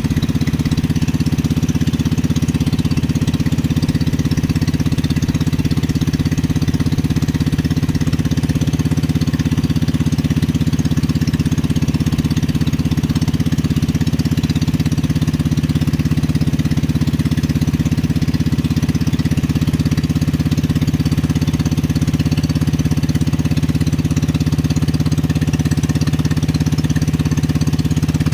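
Small boat engine running steadily at an even speed, with a rapid knocking beat.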